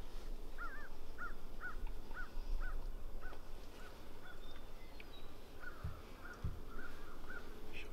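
Turkey yelping: a run of about a dozen short, evenly spaced yelps, roughly two a second, fading off, pausing briefly and starting again. Two soft low thumps are heard about six seconds in.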